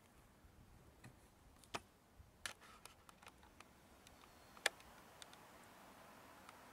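Near silence broken by a few faint, sharp clicks and ticks at irregular intervals; the loudest comes about two-thirds of the way in.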